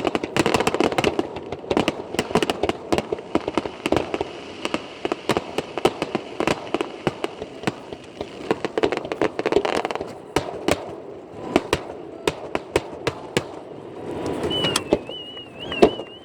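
Fireworks going off in a dense, rapid series of pops and crackles that thins out after about ten seconds. A high, wavering whistle sounds near the end.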